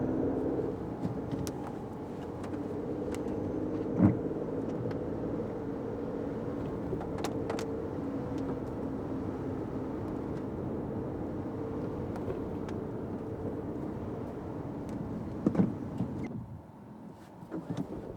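Fiat 500X driving in the rain, heard from inside the cabin: steady engine and tyre noise on a wet road, with faint scattered clicks. There is a sharp thump about four seconds in and a couple of knocks near the end, after which the road noise drops off suddenly.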